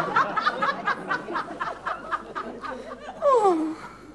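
Audience laughter that fades away over a few seconds, followed a little after three seconds in by a single vocal sound gliding down in pitch.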